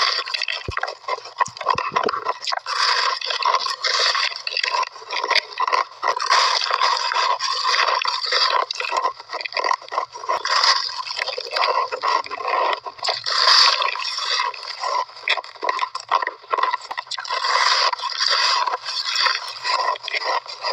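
Shaved ice being bitten and chewed, a continuous run of crisp crunches in quick succession.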